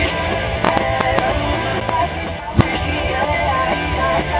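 Music playing steadily, with one sharp bang from a firework burst about two and a half seconds in.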